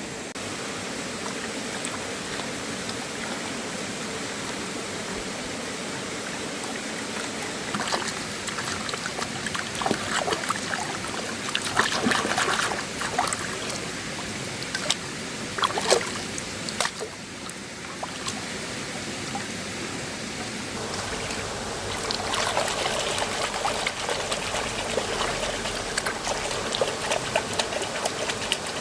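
River water trickling and flowing steadily, with a run of short sharp sounds through the middle, and the water growing louder and fuller near the end.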